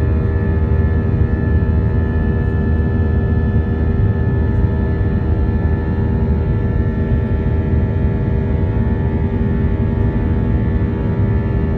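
Steady cabin noise inside an Airbus A320 in flight: a loud low rumble of airflow and its IAE V2500 turbofan engines, with steady humming tones running through it.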